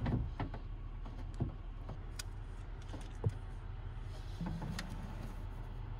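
A few light knocks and taps of a side mirror being fitted against a bare car door frame, the sharpest about three seconds in, over a steady low hum of vehicle engines running.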